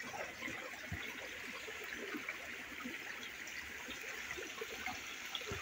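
Shallow stream running over rocks, a steady wash of water.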